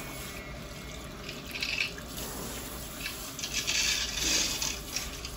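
Handheld sprayer of a salon shampoo bowl running, water spraying onto hair and into the bowl as a steady hiss. The hiss grows louder about a second and a half in, then again for a second or so past the three-second mark.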